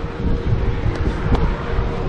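Wind buffeting the microphone on an open boat deck, a steady low rumble, with a faint steady hum underneath and a couple of light clicks about a second in.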